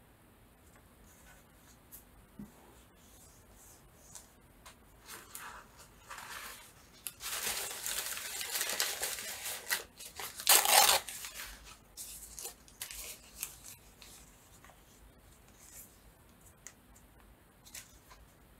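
Paper being torn by hand: a long rip near the middle, then a shorter, louder one, with lighter rustling and handling of paper before and after.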